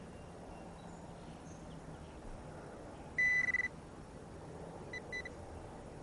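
Metal detector sounding on a buried metal target: one high steady beep lasting about half a second, then two short beeps about a second and a half later.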